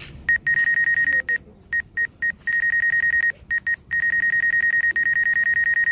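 Electronic buzzer sounding a high-pitched, rapidly pulsing beep in irregular bursts: short blips mixed with stretches of about a second, and a longer run from about four seconds in.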